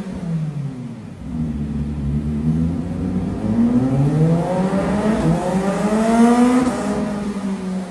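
CFMoto 500SR motorcycle engine and exhaust revving: the pitch drops back to a low note, then climbs steadily for several seconds with one brief dip, and falls off again near the end.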